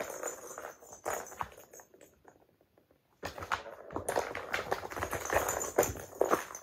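Kittens' paws scrabbling and scratching on a cardboard cat scratcher in a round wooden frame, with quick light thumps as they jump on and off it. A short flurry in the first second and a half, then denser, louder scrabbling from about three seconds in.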